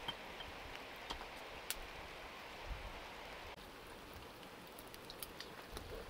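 Eggs sizzling in a clay egg pan over a wood fire: a steady frying hiss with scattered small crackles and pops.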